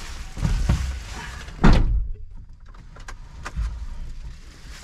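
Inside the cab of a new Mitsubishi Canter truck pulling away: a low engine and road rumble, with one loud knock about a second and a half in and a few light clicks a little later.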